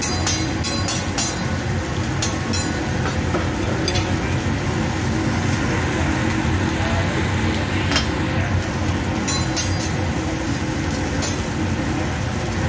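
Lobster tails sizzling on a steel teppanyaki griddle in a steady hiss, while a metal spatula and fork clink against each other and the griddle in short runs of sharp clicks, the busiest run at the start.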